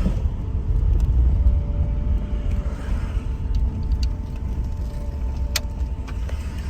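GAZelle van with a Chrysler 2.4-litre engine driving slowly, heard from inside the cab: a low engine and road rumble with a faint steady whine. A sharp click comes about five and a half seconds in.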